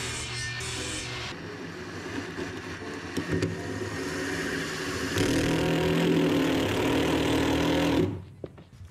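A table saw running briefly at the start, then a cordless drill/driver driving a screw through a plywood block spacer into the bus's steel wall. The drill motor runs louder and steadily in the last few seconds and cuts off about eight seconds in.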